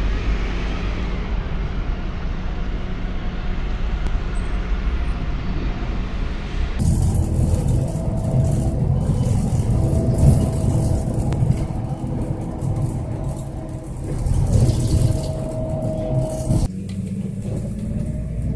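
Optare single-deck bus running: first passing by in the street, then heard from on board as it drives along, a steady engine and road rumble with a faint whine that comes and goes. The sound changes abruptly about seven seconds in and again near the end.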